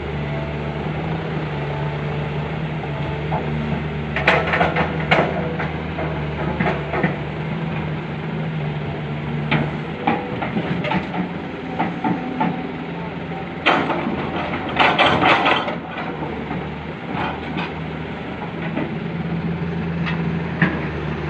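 Excavator's diesel engine running steadily as it loads soil into a dump truck, with scattered knocks and clatter from the work. The loudest clatter comes about two-thirds of the way through.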